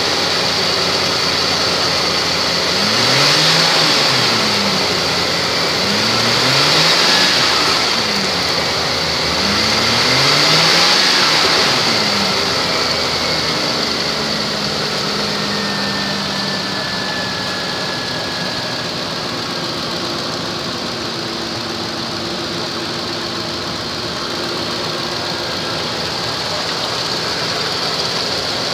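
2005 Ford Expedition's V8 engine running: revved up and let back down three times in the first twelve seconds or so, then settling to a steady idle.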